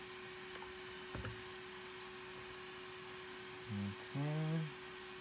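A steady electrical hum from bench equipment, a light click about a second in, then near the end two short low hums from a person, like a murmured 'mm-hm'.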